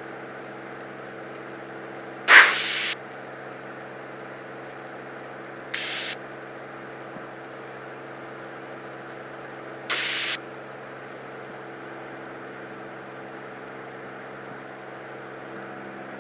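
Steady drone of the Cirrus SR22's six-cylinder piston engine heard through the headset intercom. It is broken three times, at about two, six and ten seconds in, by short bursts of hiss from the aircraft radio, the first burst the loudest.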